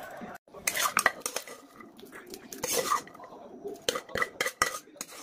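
Steel spoon scraping and clinking against a stainless-steel plate as a chopped snack mix is stirred and scooped up, a series of sharp irregular clinks with a brief metallic ring.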